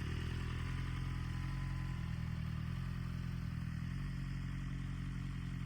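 2022 BMW M1000RR's inline-four engine idling steadily through an Akrapovic Evolution Line titanium full exhaust system.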